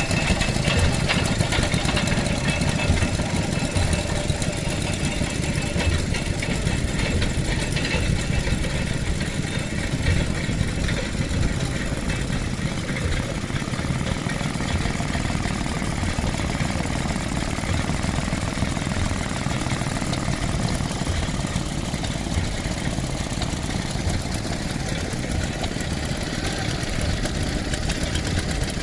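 Vintage petrol engine running steadily at idle, holding one even speed.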